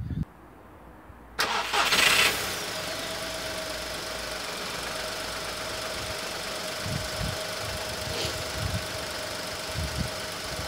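A VW Polo's 1.2-litre three-cylinder petrol engine is started: it cranks and fires about a second and a half in, then settles into a steady idle.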